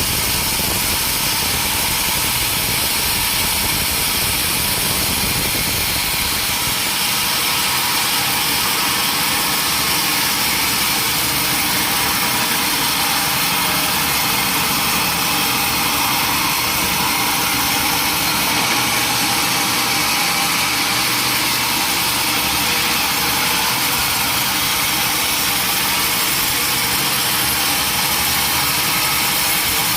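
Sawmill log saw running steadily, a constant loud hissing machine noise; its low rumble thins out about seven seconds in.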